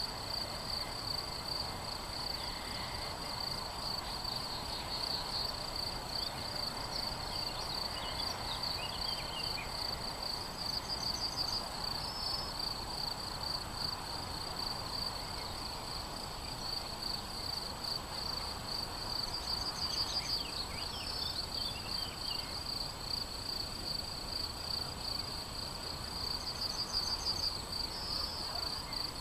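Crickets chirping steadily without a break, with a bird singing briefly twice, about a quarter of the way in and again about two thirds of the way in.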